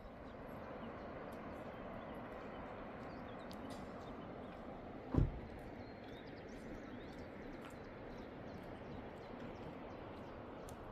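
Footsteps of a walker on a paved village street, heard as faint repeated ticks over steady open-air street ambience. One low thump about halfway through.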